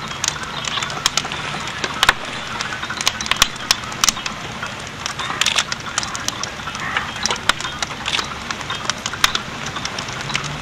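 Fire burning a grand piano, crackling with many irregular sharp snaps and pops over a steady hiss of flames.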